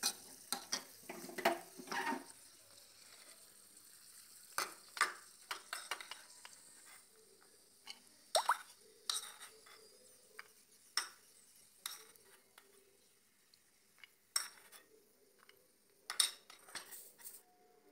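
A metal spoon scraping and knocking against a pan and a steel plate as ghee-fried cashews are scooped out onto the plate: scattered sharp clinks and taps, with a faint sizzle in the first couple of seconds.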